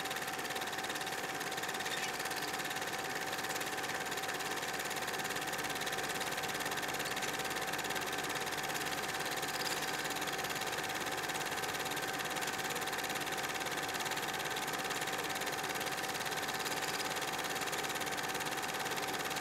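A steady, machine-like hum with a held mid-pitched tone that does not change.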